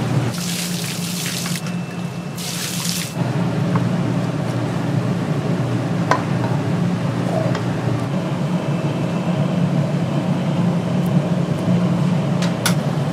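Water running from a kitchen tap into a sink, with two short, harsher bursts of spray in the first three seconds, over a steady low hum and a few light clinks.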